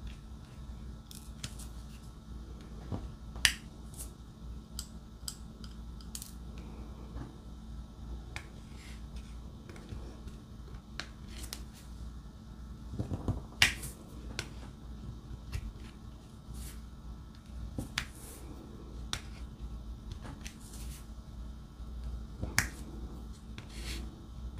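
Scattered small clicks and taps of a diamond painting pen picking up drills and pressing them onto the canvas, at irregular intervals, a few sharper than the rest.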